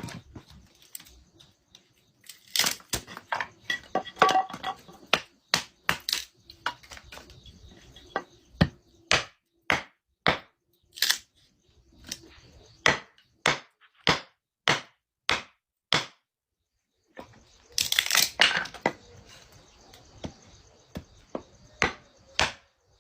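Firewood being chopped: a long series of sharp, irregular chopping strikes on wood, about one or two a second, with a short pause about two-thirds of the way through.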